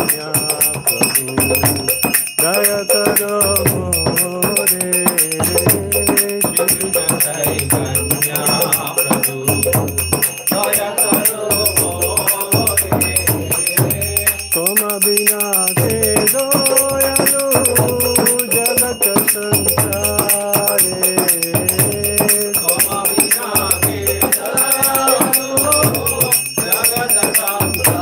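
Devotional kirtan: voices singing a bhajan over jingling, rattling hand percussion.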